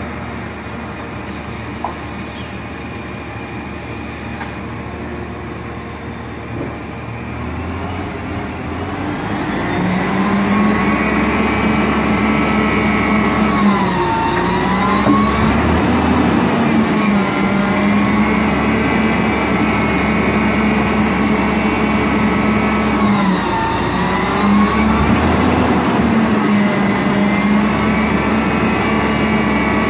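Natural-gas McNeilus front-loader garbage truck running its engine and hydraulics as the lift arms come down from the dump. About nine seconds in, the engine speeds up to a steady high-pitched drone that dips briefly and recovers twice.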